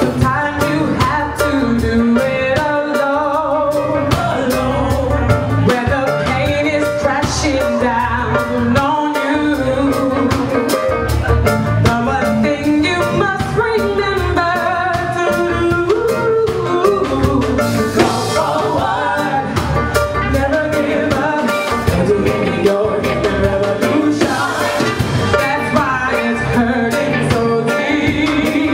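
Live reggae band playing with a lead singer: sung vocals over heavy bass and drums keeping a steady beat.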